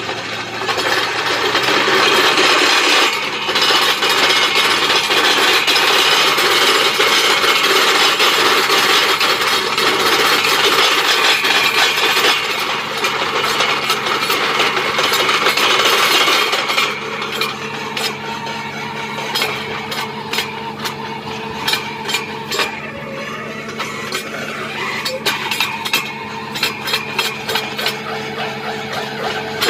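Truck-mounted borewell drilling rig running, its engine a steady low hum throughout. For about the first half a loud rushing hiss covers it; then it drops to a quieter run with a rapid stream of clicks and rattles as the drill rod turns into the ground.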